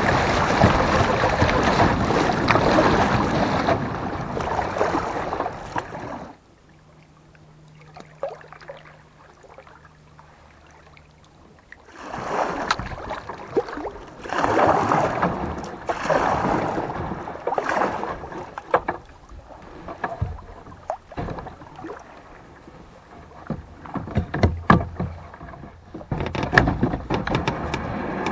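Shallow muddy river water rushing steadily through a riffle under a kayak. About six seconds in it drops to a quiet stretch. From about twelve seconds on come irregular splashes and knocks of water and paddle against the kayak.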